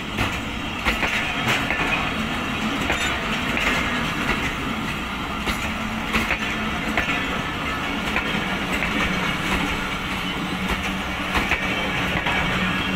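Passenger train coaches rolling past close by as the train pulls out. There is a steady rumble of wheels on the track, with irregular clicks and knocks as the wheels cross rail joints.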